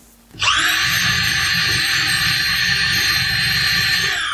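The motor of a Parkside PNS 300 B2 corded 300 W electric drill spins up quickly about half a second in. It runs with a steady high whine as the bit bores into a wooden block. Near the end it is released and the whine starts to fall as it spins down.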